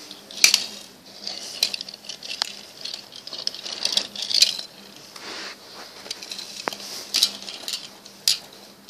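Small die-cast metal toy cars being handled and knocked together on carpet: irregular clicks and clinks with scratchy rustling, the loudest knocks about half a second in and about four and a half seconds in.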